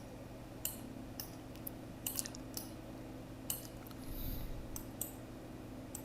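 Faint, irregular clicks of a computer mouse, about ten of them, over a low steady electrical hum.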